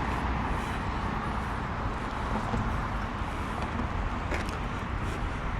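Steady outdoor traffic noise: a low, even rumble of road vehicles.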